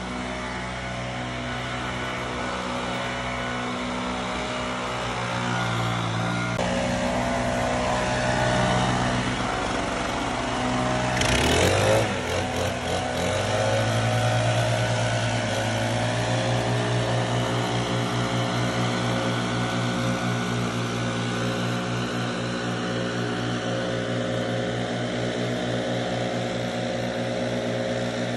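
Backpack leaf blower engine running at high throttle, blowing air. About twelve seconds in its pitch sweeps and it briefly peaks, then it settles into a steady high drone.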